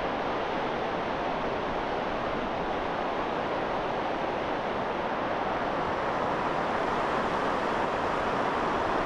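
Surf breaking on a shallow sandy shore: a steady, even wash of sea noise that grows slightly louder toward the end.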